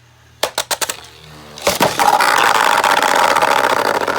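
A quick run of sharp plastic clicks, then Beyblade spinning tops launched into a plastic stadium, spinning and scraping with a loud steady rattle for about three seconds before it stops: a missed launch ending in a self KO.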